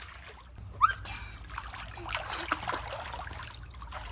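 Pool water splashing and trickling as small children play in it. There is a short high squeak just before a second in.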